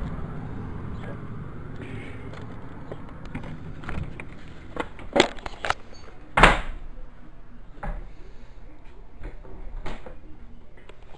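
A door being handled and shut: a few sharp clicks and knocks about five seconds in, then a louder bang a second later as it closes.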